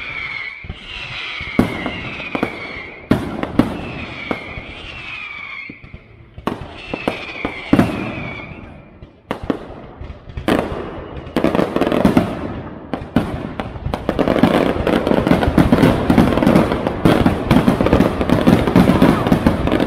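Fireworks display. Sharp bangs with whistling tones that fall in pitch through the first half, then a dense, continuous barrage of crackling bursts and bangs from about halfway on.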